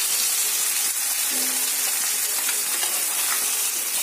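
Pieces of rohu fish sizzling in hot oil in a kadai, a steady loud hiss, with a few light scrapes and taps of a spatula as the pieces are lifted out.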